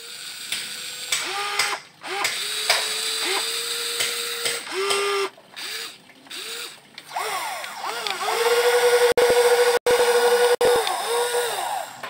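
Small electric gear motors of a radio-controlled toy excavator whining in short spells as the arm and tracks move, each spell starting with a quick rise in pitch. A longer, louder run comes in the second half, cut by a few sudden breaks.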